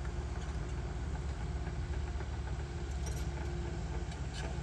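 Doosan crawler excavator's diesel engine running steadily, with light metallic clinks about three to four seconds in.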